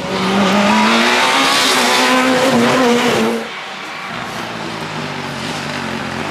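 Rally car engine revving hard close by, its pitch climbing and then wavering, for about three and a half seconds; then it cuts abruptly to a second rally car heard farther off, its engine running steadily as it drives along the stage.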